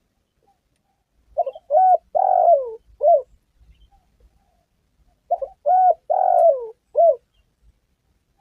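Spotted dove cooing: two identical phrases about four seconds apart. Each opens with a short stuttered note, then a coo, a longer coo that falls in pitch, and a short closing coo. This is the tekukur's advertising call, used as a lure call.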